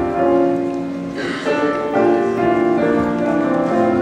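Instrumental keyboard music: a melody of held notes changing in steps, with chords beneath.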